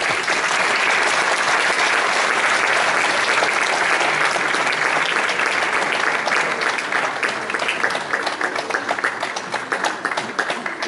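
Audience applauding, dense at first and thinning to scattered separate claps near the end.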